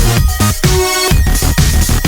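Loud electronic dance music with a steady beat and synthesiser notes that slide in pitch.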